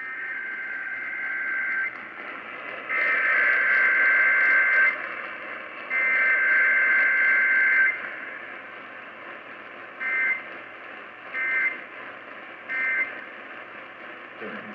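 Emergency Alert System SAME data bursts received over a weak, hissy radio signal: three buzzy two-tone bursts of about two seconds each, then three short bursts typical of the end-of-message code.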